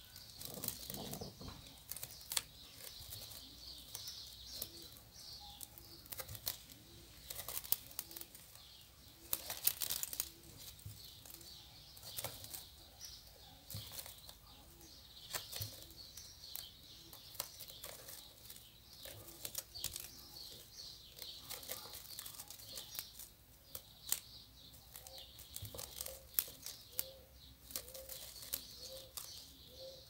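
Faint rustling and scattered light clicks of hands handling a strip of small gold beads, pressing it onto the glued edge of an EVA foam piece.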